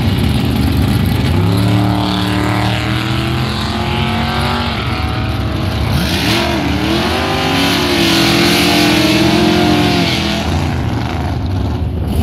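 Turbocharged Ford Mustang drag car making a full-throttle pass down the strip, short-shifted on a low boost setting. The engine's pitch drops and climbs back at the gear changes, and the sound fades as the car reaches the far end.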